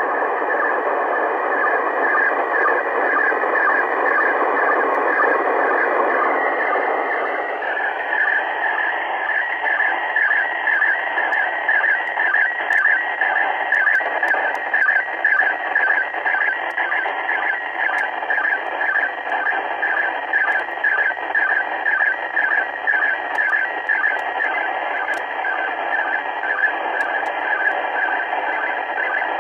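Amateur radio transceiver giving out receiver static: a loud, steady hiss held within a narrow band, whose tone shifts about a quarter of the way in, after which a regular pulsing of about two or three beats a second runs through it.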